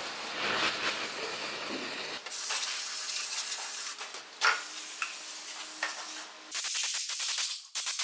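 Aerosol cleaning spray hissing onto a car's air-conditioning blower motor and its parts, with a quick run of short hissing bursts near the end.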